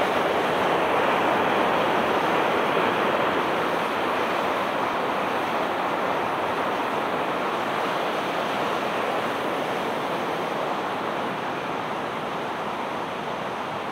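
Steady rush of fast-flowing water, even and unbroken, slowly growing quieter.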